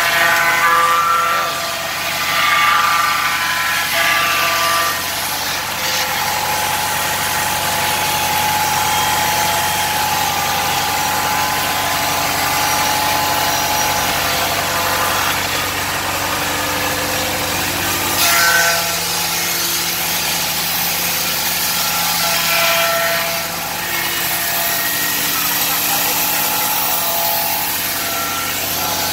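Horizontal band resaw running under test, sawing wood fed along its conveyor belt: a steady machine hum with several held tones and a few brief louder swells, the biggest about eighteen seconds in.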